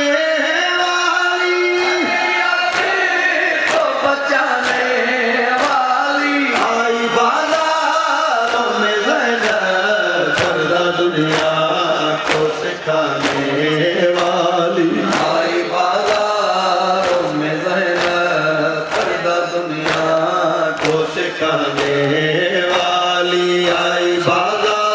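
A man chanting a noha, a Shia lament, through a microphone and loudspeakers, in long held, gliding notes. A steady beat of sharp slaps runs under it from about three seconds in, fitting the crowd's matam, rhythmic chest-beating with raised hands.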